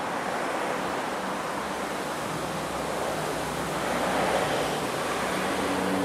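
Steady rushing wind noise outdoors, swelling slightly about four seconds in, with a faint low hum underneath.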